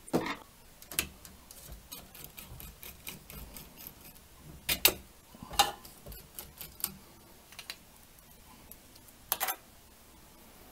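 Irregular clicks and light knocks of hands handling and taking apart a small plastic 3D-printer cooling fan, with a few sharper knocks about midway and near the end.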